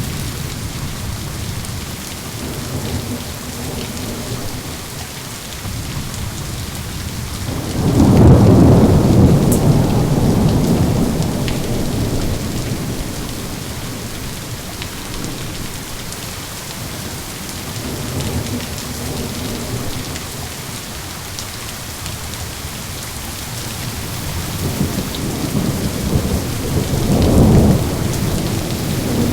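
Thunderstorm: steady heavy rain with rolling thunder. A loud thunder rumble breaks in about eight seconds in and dies away over several seconds, a fainter rumble follows midway, and another swells near the end.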